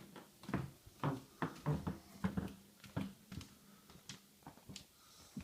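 A sleeping woman snoring: a run of short, uneven snorts and grunts, two or three a second.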